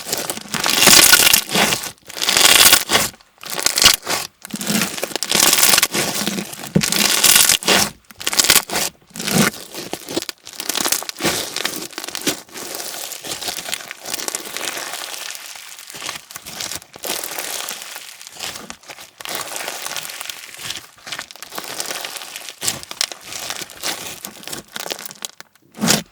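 Clear slime packed with slushie beads being squeezed and pressed by hand, giving a dense crunchy crackle. The squeezes come in strong strokes about once a second at first, then turn into a softer, steadier crackle.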